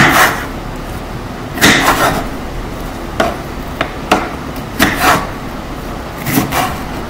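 Kitchen knife chopping red bell pepper on a wooden cutting board: a series of sharp knocks, irregularly spaced, as the blade cuts through and hits the board.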